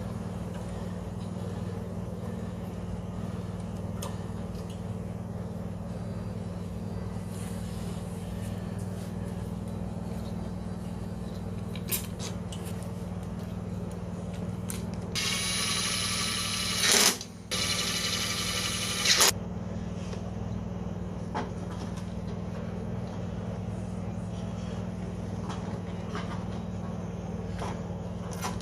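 A steady low machine hum. Around the middle it is joined by a loud hiss with a whistling edge lasting about four seconds, cut off briefly once.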